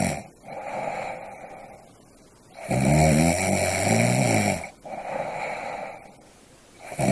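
Snoring: one loud, pitched snore lasting about two seconds, with softer breathy sounds on either side of it, and the next snore starting right at the end, about one snore every four seconds.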